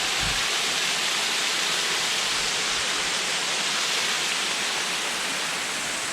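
Small waterfall on a rocky stream, water pouring and splashing in a steady rush.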